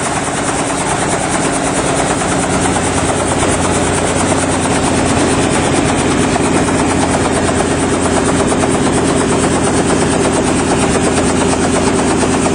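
Helicopter's rotor and engine running steadily, with a fast, even rotor pulse, a little louder after a couple of seconds.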